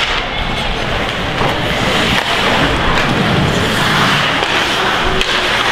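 Steady noisy din of an ice hockey game in a rink: skates scraping the ice and spectators' noise, with a few sharp clicks from sticks and puck.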